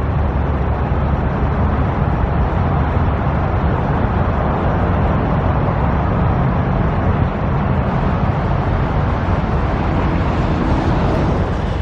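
Steady motor vehicle noise, an unbroken rumble with no sudden events.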